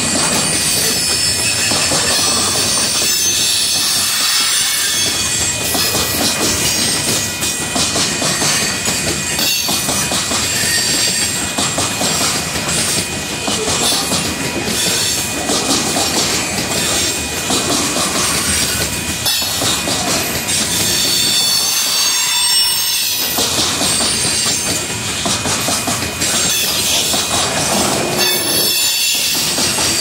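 Covered hopper cars of a Union Pacific grain train rolling past: a steady rumble and rattle of steel wheels on rail, with clickety-clack over the rail joints and high, wavering wheel squeal.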